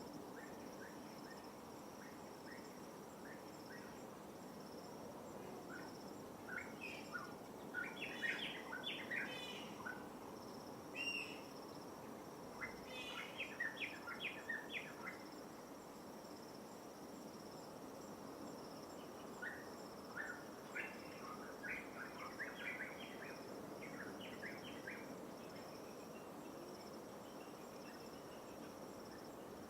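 Birds calling in three bouts of quick chirps, over a steady high-pitched insect drone and the soft wash of light waves.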